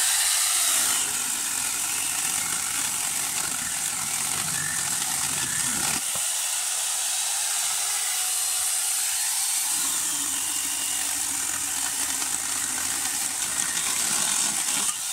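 Electric palm angle grinder fitted with a mini chainsaw bar and chain, running flat out and cutting through a log. The high motor whine holds steady. The lower cutting sound fades for a few seconds after about six seconds, then comes back.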